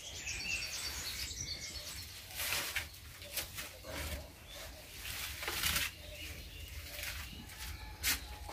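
Heavy woollen blanket and reed sleeping mat rustling in short bursts as they are gathered and folded, with small birds chirping in the first second.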